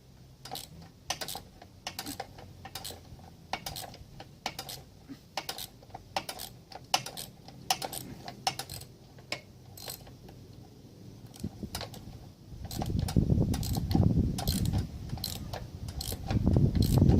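Sharp, irregular metallic clicking of hand tools being worked on the mower's metal parts. From about twelve seconds in, a louder low rumble of handling noise joins it.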